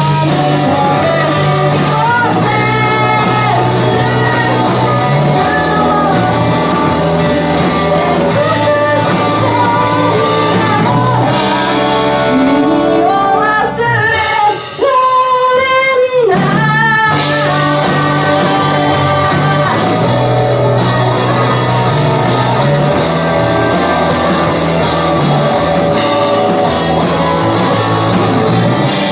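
Student rock band playing live: electric guitars and a drum kit under a sung lead vocal. About halfway through, the band drops out for a couple of seconds, leaving a single held note, then comes back in.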